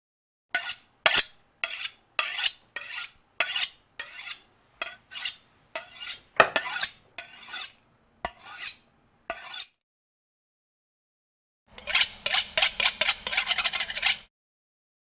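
A knife blade scraped against a sharpener in short strokes, about two a second, for some nine seconds. After a pause of about two seconds comes a quicker run of rapid strokes over a faint low hum.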